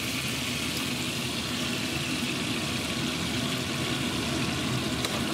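Hot oil frying steadily in a cast-iron Dutch oven: a continuous sizzle with a low rumble underneath, and a light click near the end.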